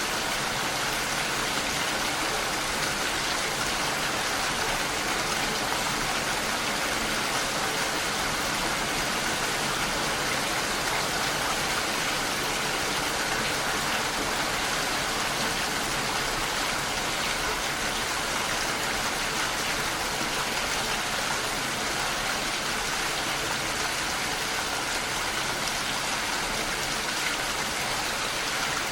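Steady rain falling, an even hiss with no single drops or gusts standing out.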